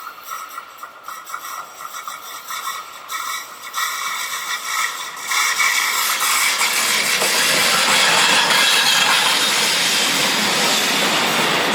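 Train on the rails, with thin steady squeal tones from the wheels and track at first; about five seconds in it rises to the loud, steady rush of the train passing close by.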